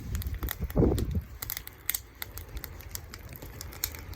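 Wood fire crackling and popping in quick, irregular snaps.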